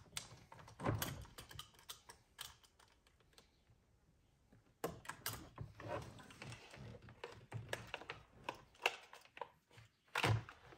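Irregular clicks and light plastic rattles from a UTV's plastic dash switch panel and wiring harness connectors being handled and fitted, with a pause of about a second partway through.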